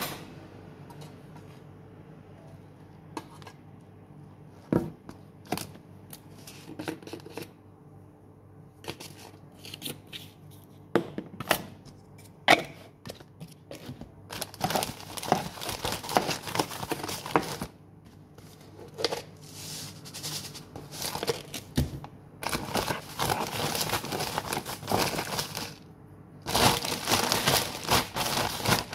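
Clear plastic bag of breadcrumbs crinkling and rustling in three long stretches in the second half, with scattered sharp clicks and taps before them.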